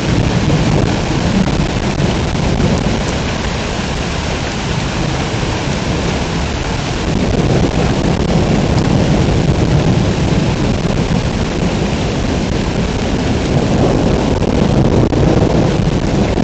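Heavy rain pouring down in a thunderstorm, a dense steady hiss with a low rumble underneath, swelling louder about halfway through.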